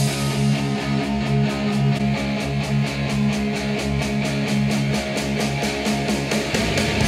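A guitar-led rock song played back through a pair of Edifier R2750DB bookshelf speakers and picked up by room microphones, with a steady rhythm.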